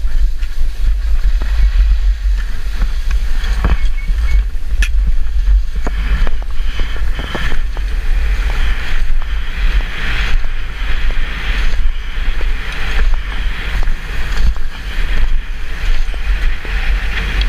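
Wind buffeting the microphone with a heavy, gusty rumble, over the hiss and scrape of skis on packed, groomed snow that swells and fades every second or two during a downhill run.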